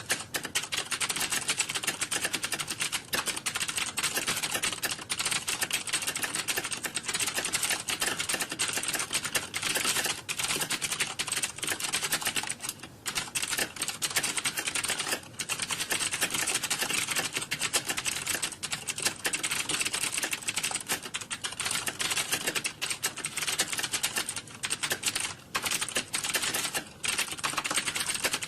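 Fast, continuous typing on a computer keyboard, a dense run of key clicks with a few brief pauses, at the pace of a typing speed test.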